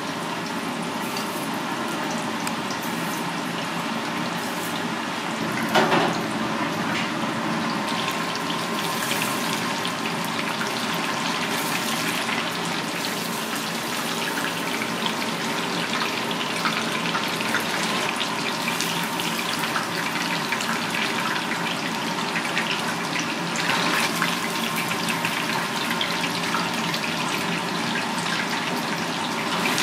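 Coated fish pieces deep-frying in hot oil: a steady sizzle full of fine crackling and popping, with a sharper, louder burst of sizzle about six seconds in.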